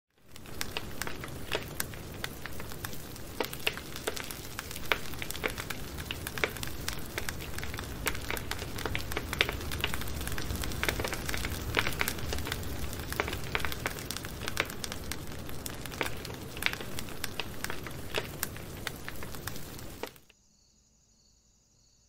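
Wood fire crackling, with many sharp pops over a steady rush. It cuts off suddenly near the end.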